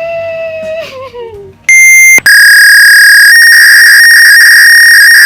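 A high voice glides up and then down for about a second and a half. Then a very loud, piercing electronic beep tone cuts in, breaks off for a moment and holds steady for about three seconds before stopping abruptly.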